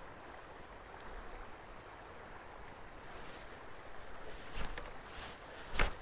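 Quiet, steady rush of a small river's flowing water, with a few short sharp sounds about four and a half seconds in and again just before the end.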